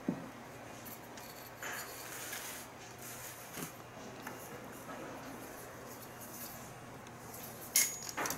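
Hand leather-crafting work: light scraping and rubbing with a few small knocks, and a cluster of sharper clicks near the end.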